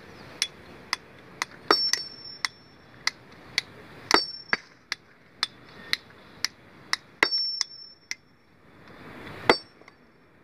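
Steel hammer striking stone while splitting rock: light taps about two a second, with four heavier ringing blows, the loudest near the end.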